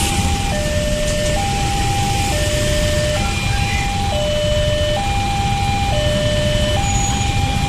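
Railway level-crossing alarm sounding its electronic two-tone high-low warning, switching tone a little under once a second, over the low running of idling motorcycles. The alarm warns that a train is approaching and the crossing is closed.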